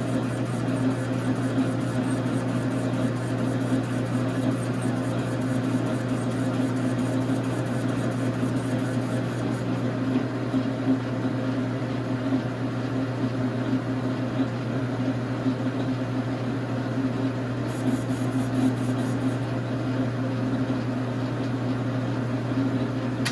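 1989 Dar Sin 12x37 gap bed lathe running steadily with its spindle turning, a constant low machine hum from its 220 V single-phase motor and drive.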